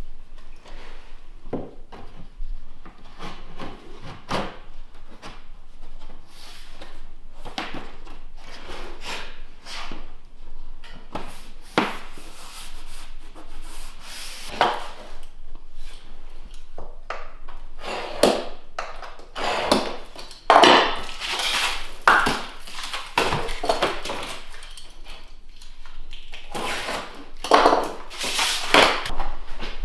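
Flooring being laid by hand: irregular knocks, taps and short scraping strokes as planks are handled and fitted, busiest about two-thirds of the way through and again near the end.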